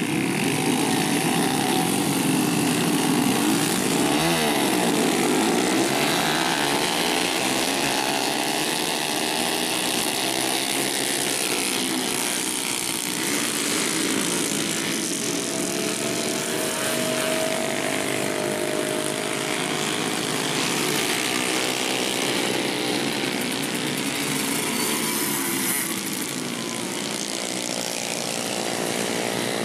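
Several small motorcycle engines revving hard as the bikes race past, their pitch rising and falling as each one goes by, over a steady engine buzz.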